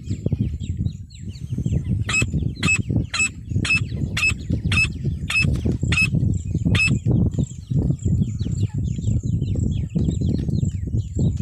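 Female francolin (teetar) calling: a run of about nine sharp, evenly spaced notes, roughly two a second, over a steady low rumble and faint high chirping.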